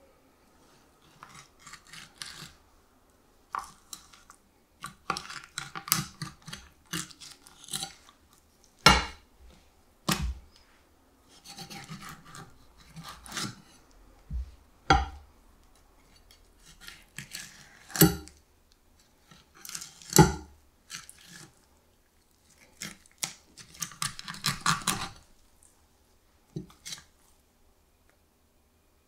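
Kitchen knife filleting a striped beakfish: scraping and rasping comes and goes as the blade works along the backbone and ribs. Several sharp knocks stand out among them.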